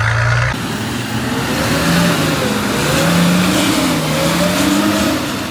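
A four-wheel drive's engine revving up and down in repeated swells, working hard on a slippery climb, over a steady hiss of noise.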